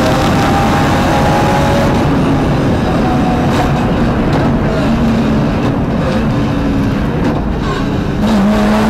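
BMW rally car's engine running hard under load, heard from inside the stripped cabin, with constant road and tyre noise. The engine note steps up and down as the car is driven through the gears, climbing again near the end.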